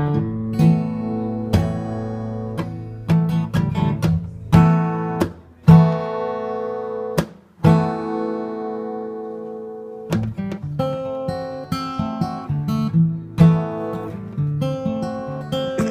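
Acoustic guitar strummed, chords ringing out. Near the middle two chords are left to ring for a couple of seconds each, then the strumming picks up again.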